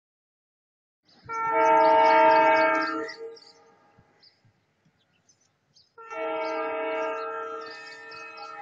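WDP4 diesel locomotive's air horn sounding two long blasts, several tones at once: the first about a second in, lasting about two seconds, the second starting about six seconds in and held.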